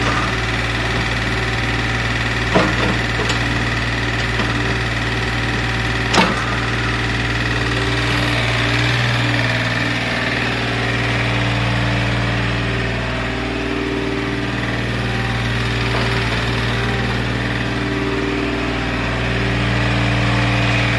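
Komatsu PC35MR mini excavator's diesel engine running steadily while the machine swings and works its boom, the engine note wavering slightly under the hydraulic load. Two sharp clunks, about two and a half and six seconds in.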